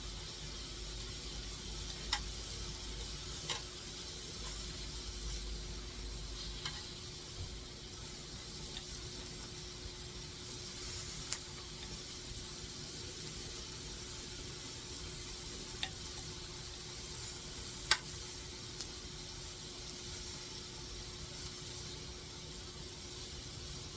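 A steady hiss with a faint hum, broken by occasional sharp clicks or pops.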